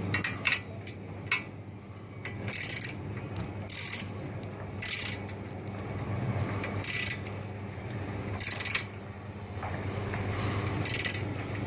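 Ratcheting combination wrench being swung back and forth on a nut: short bursts of rapid pawl clicking on each back-swing, one to two seconds apart, with a sharper single click about a second in.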